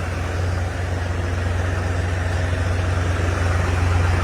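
Heavy diesel engine running steadily at a constant speed, with a strong low hum.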